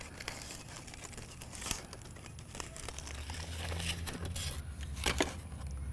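Non-stick aluminium foil crinkling and rustling as it is peeled open by hand from a hot baked potato.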